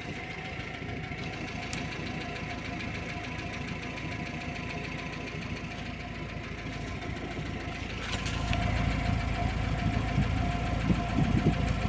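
VAZ-2101 'Kopeika' engine running cold, not yet warmed up, with a steady fast ticking knock: the camshaft knock the owner is chasing. About two-thirds of the way through the engine note gets louder and heavier.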